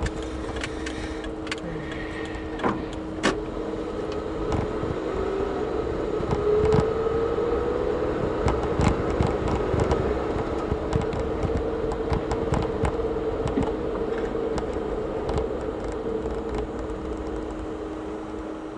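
Car driving slowly, heard from inside through a dashcam: a steady engine and road hum with scattered clicks and knocks from the road surface and cabin. It gets quieter near the end as the car slows.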